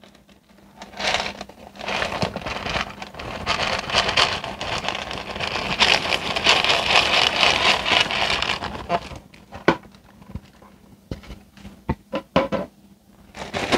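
Dry rotini pasta poured from a dish into a quart-size zip-top plastic bag: a dense rattle of pasta pieces lasting about eight seconds. This is followed by a few scattered clicks and knocks as the bag and dish are handled.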